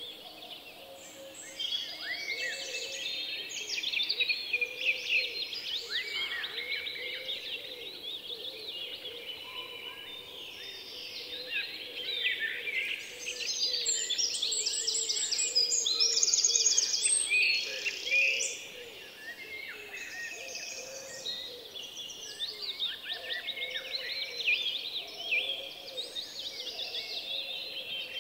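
A dense chorus of many small birds chirping and singing at once, continuous throughout, louder midway with a fast, rapid trill.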